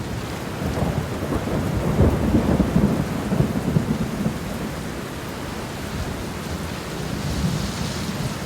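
Steady rain with a long roll of thunder, the rumble strongest between about one and four seconds in and then fading under the rain.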